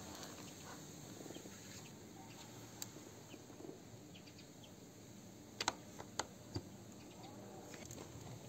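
Faint ticking and crackling of a newly lit wood fire of kindling and split logs in a homemade stove's firebox, with four sharp clicks a little past halfway.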